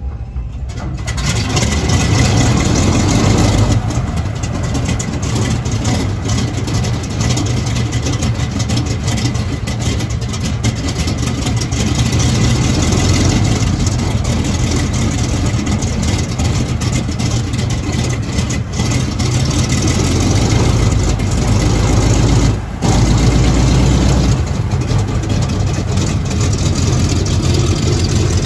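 Republic P-47 Thunderbolt's 18-cylinder Pratt & Whitney R-2800 radial engine idling steadily on the ground, with a brief dip in level about 23 seconds in.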